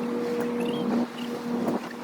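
A boat engine running with a steady hum, and wind on the microphone.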